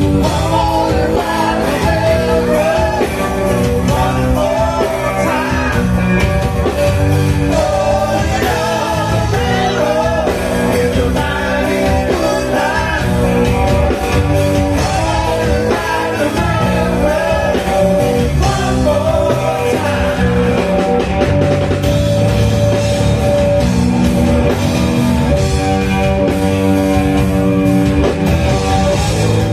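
Live rock band playing: electric guitar, drum kit and keyboards, with a male voice singing over them.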